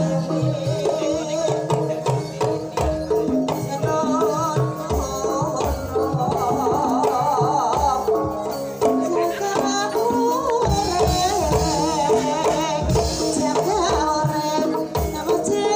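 Javanese gamelan music accompanying a kuda kepang dance: kendang hand drums drive a steady beat under sustained metallophone tones and a wavering melody line.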